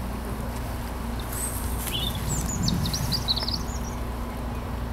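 European robin singing one short phrase of quick, high, thin notes that twist up and down, lasting about two seconds, over a steady low rumble.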